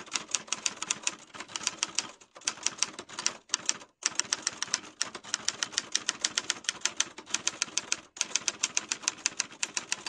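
Typewriter key clicks used as a sound effect for text typing onto the screen: a rapid, even stream of about five or six clicks a second, broken by a few short pauses.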